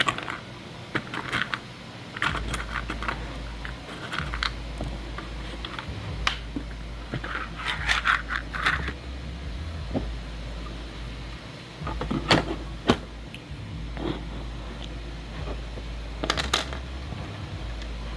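Hard 3D-printed plastic parts clicking, knocking and scraping against each other as hinge pieces are handled and fitted into the case. There are two sharper knocks about two-thirds of the way through.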